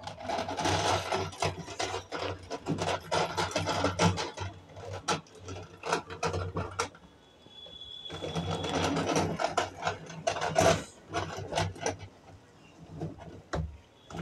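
Large plastic toy jeep pushed by hand across a cloth sheet, its plastic wheels and gears clattering in two runs of several seconds, over a steady low hum.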